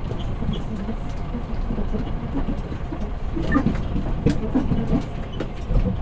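Scania P360 dump truck driving: a steady low engine and drivetrain rumble with frequent short knocks and rattles.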